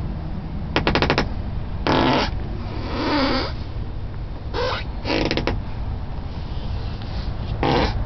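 Toyota Avalon's driver-side rear door squeaking at its lower hinge as the door is moved, about six short creaky squeaks, the first a fast rattling creak. The owner ties the squeak to a plastic part that broke off when the frozen door was tugged open.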